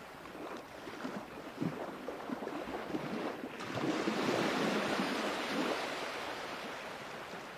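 Sea waves washing ashore: small splashes for the first few seconds, then a larger wave swells up about four seconds in and slowly hisses away.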